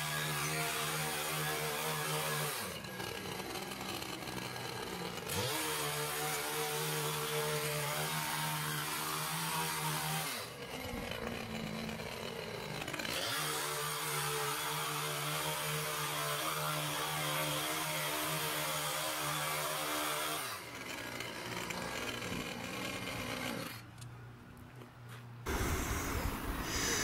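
Small gas-powered mini tiller (garden cultivator) running hard as its tines churn soil and mix in peat moss. The engine eases off and revs back up three times, then stops near the end.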